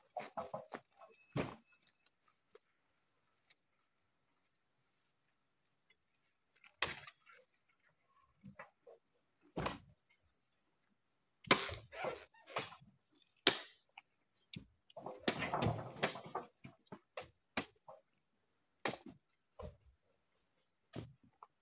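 Oil palm fruit bunches thudding irregularly as they are dropped into a rattan basket and onto a truck bed, with a busier run of knocks about two-thirds of the way in. A steady high insect drone runs underneath.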